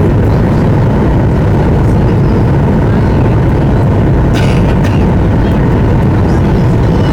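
Cabin noise inside a Boeing 737-800 in flight on approach: a steady, loud, low rumble of the CFM56-7B engines and rushing air, with a faint steady tone above it.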